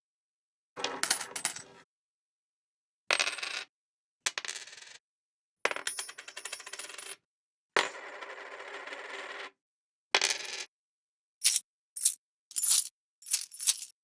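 A run of separate coin sound effects with dead silence between them: coins dropping and clinking on a hard surface, a couple of longer rattling runs in the middle, then five short single clinks about every half second near the end.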